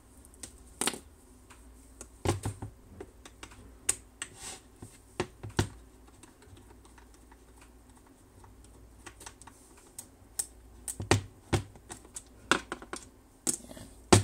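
Scattered sharp clicks and taps of small metal screws and a screwdriver working on the plastic-and-metal housing of a Mercedes automatic gear selector lever unit as its last cover screw is backed out. A few isolated clicks, a quiet spell in the middle, then a quicker run of clicks near the end.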